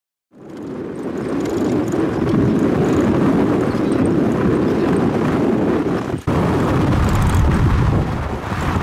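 Safari vehicle driving on a dirt track: steady engine and road noise with wind buffeting the microphone. It fades in over the first second and drops out briefly about six seconds in.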